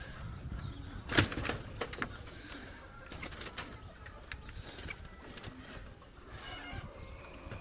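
Scattered clicks and knocks of a wooden bird trap being handled and set again. The loudest knock comes about a second in, and birds call in the background, with a call near the end.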